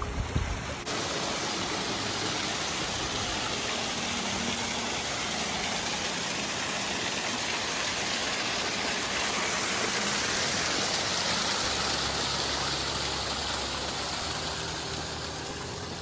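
Water splashing down a small stacked-stone waterfall into a pond, a steady rushing.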